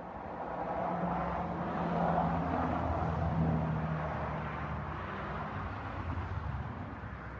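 A vehicle passing by: its broad rushing noise swells for about three seconds and then slowly fades, over a steady low hum.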